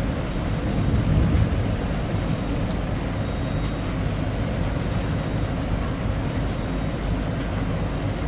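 Steady rain with a deep low rumble underneath, swelling briefly about a second in, with faint scattered drop ticks.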